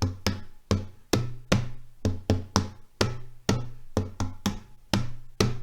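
A large lidded salad bowl played as a hand drum with bare hands: a steady rhythm of about three strokes a second, mixing deep ringing strokes in the middle with sharper, shorter slaps near the edge.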